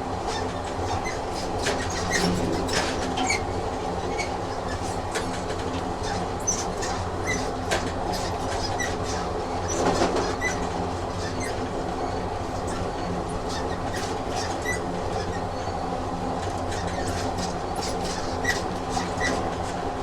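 Train sound effect: a train running on the rails with a steady rumble and frequent clicks of the wheels over the track.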